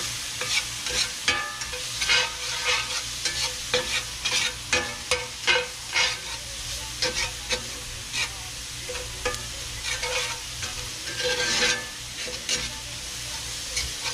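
Diced onion, garlic and pieces of dove breast sizzling in oil in a cast-iron skillet. A metal spatula stirs them, scraping and tapping against the pan several times a second in an uneven rhythm.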